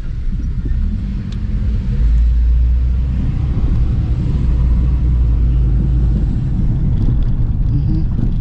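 Car driving on a road: a steady low rumble of engine and road noise, growing louder about two seconds in.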